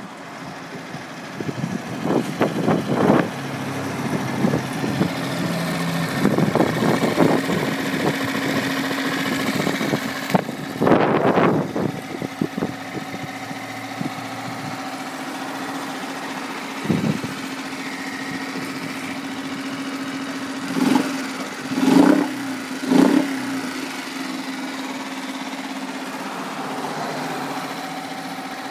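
Single-cylinder engine of a 2003 Yamaha 2.5 hp four-stroke outboard motor running at a steady idle. It is revved briefly several times, ending with three quick throttle blips about three-quarters of the way through.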